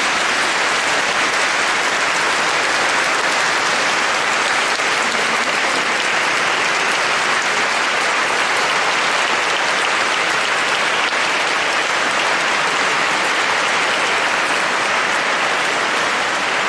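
A large audience applauding, a long, steady round of clapping with no break.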